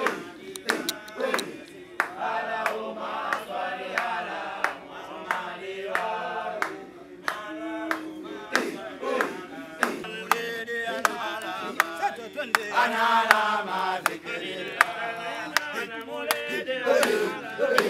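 A group of men chanting an Islamic religious chant together, with many sharp clicks scattered through it.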